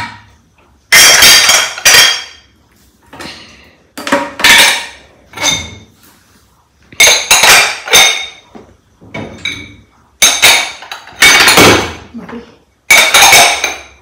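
Glass jars, glasses and other dishes clinking and clattering as they are handled and set down: a string of separate knocks, several ringing briefly.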